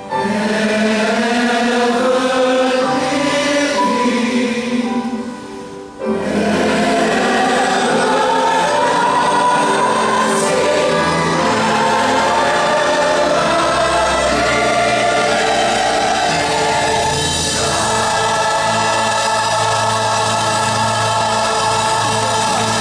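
Choir singing with orchestra: one phrase that fades briefly about five and a half seconds in, then a full passage of long held chords.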